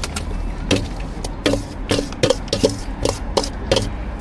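Irregular series of sharp knocks and clacks from food-preparation utensils at a braised-food stall's counter, about a dozen strikes, several with a brief ring, over a steady low hum.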